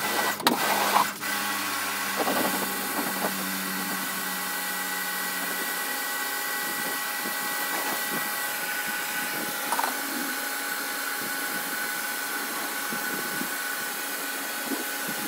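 Kärcher pressure washer running: its motor and pump hum steadily under the hiss of the water jet blasting hard paving. A few sharp knocks come in the first second or so.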